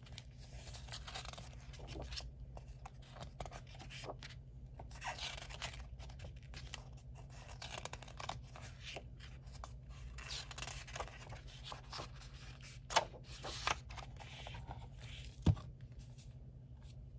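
Pages of a hardcover sticker book turned by hand, each turn a short papery swish, with a few sharper page snaps about two-thirds of the way through. A single dull knock near the end as the book is closed and turned onto its back cover.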